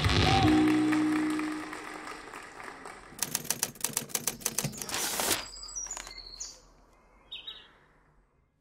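An intro music chord fades out. It is followed by a quick run of typewriter key clacks, about a dozen in two seconds, then a few short high chirps.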